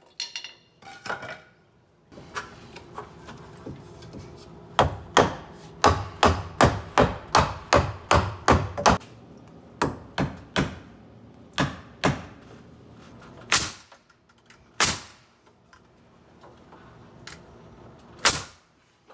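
Hammer driving nails into wooden wall framing and blocking. A quick run of about a dozen blows, roughly three a second, comes between about five and nine seconds in. Slower single strikes follow, with a last sharp strike near the end.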